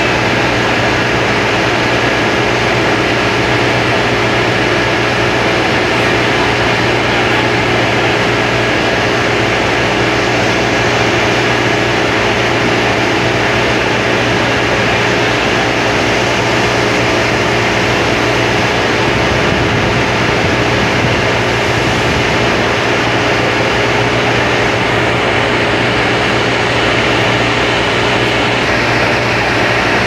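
Steady, loud industrial roar of the aluminium holding furnace and its plant machinery, with a constant low hum running through it.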